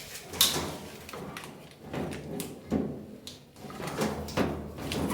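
A series of sharp plastic clicks and scrapes, the sharpest about half a second in, as a plastic cable tie is snapped and a wiring connector is unclipped inside a washing machine's top panel.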